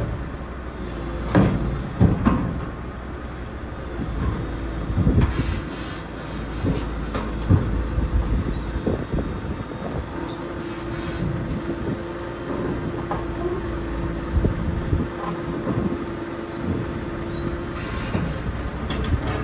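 Komatsu PC210 hydraulic excavator's diesel engine running as it crawls onto a lowboy trailer deck, its steel tracks clanking, with several knocks in the first half. A steady whine holds for several seconds in the second half as the machine levels out onto the deck.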